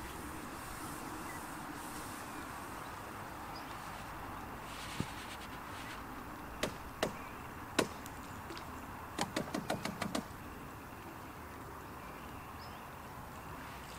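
Sharp clicks and knocks from a long fishing pole and its tackle being handled: a few single knocks, then a quick run of about eight clicks just past the middle, over a steady outdoor background.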